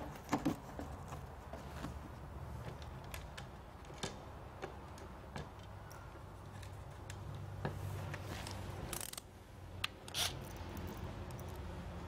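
Faint handling noises: scattered light clicks and rattles of wires, connectors and tools being moved, with a couple of brief louder rustles late on, over a steady low hum.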